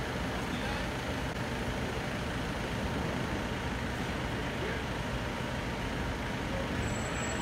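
Steady rumble of a large truck's engine idling.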